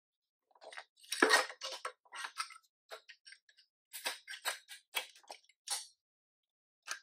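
Gear sets of a Mitsubishi Evo X DCT470 dual-clutch transmission clicking and clinking as they are worked by hand into the transmission case: a run of irregular metal ticks and knocks, the loudest about a second in.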